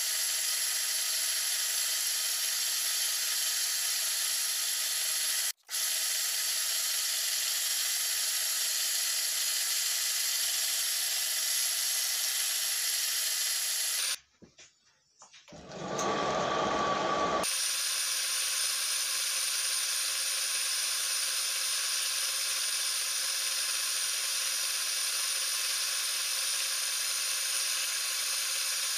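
Electric wood lathe running at a steady speed, a constant motor hum and whine with a few held tones. It drops out for an instant about five seconds in. About halfway it stops for a moment, and a short burst of a different noise with a single tone fills the gap before the steady running returns.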